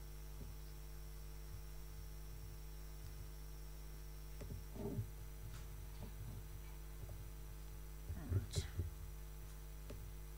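Steady electrical mains hum, with a few faint soft knocks and clicks about halfway through and again near the end.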